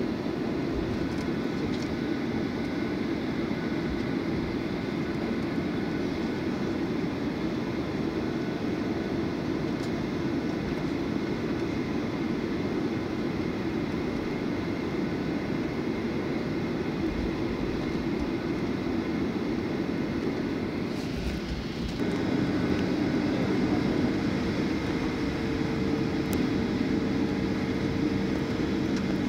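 Airliner cabin noise while taxiing: a steady rumble and engine hum. About two-thirds of the way through it gets louder, with a new steady drone.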